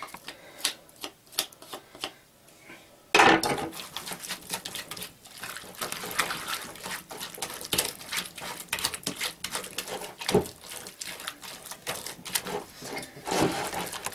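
A hand whisk beating eggs into lumpy choux pastry dough in a bowl: irregular clicking and tapping of the wires against the bowl as the lumps are broken up, with one loud knock about three seconds in.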